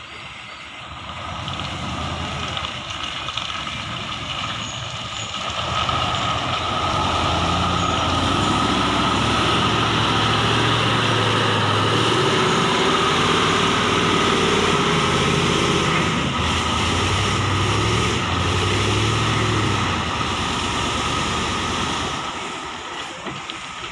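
Tanker truck's diesel engine labouring through deep mud, getting louder about five seconds in as the truck comes close and passes, its revs rising and falling.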